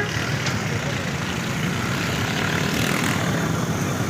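Train passing close by: a steady, loud rumbling drone of engine and wheels.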